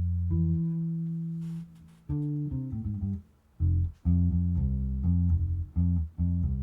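Squier 40th Anniversary Vintage Precision bass with stainless steel flatwound strings, played through an Ampeg B50R combo amp and heard through a room microphone. A held note fades out, a quick run of notes follows, and after a brief pause comes a steady line of short, evenly spaced notes.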